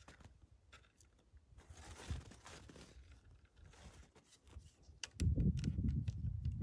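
Faint scattered clicks and crunches, then a loud low rumble on the microphone that starts suddenly about five seconds in.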